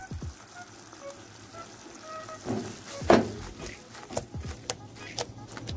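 Creamy coconut-milk sauce with gnocchi sizzling quietly in a pan as it reduces, with a few sharp clicks, the loudest about three seconds in, and faint background music.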